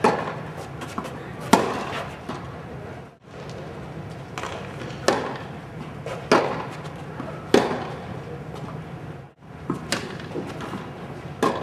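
Tennis balls being struck by rackets and bouncing on the court: sharp pops a second or two apart, over a steady low hum.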